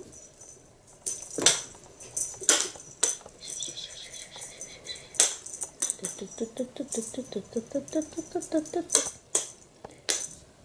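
Cat's paws thumping and claws clicking on a wooden floor while it chases and pounces on a feather wand toy. The toy and its rod tap the floor in separate sharp knocks. In the second half there is a quick run of short pitched notes.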